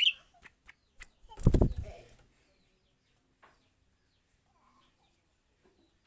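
Caged leafbird gives a short high chirp, then flaps its wings hard for about half a second around a second and a half in.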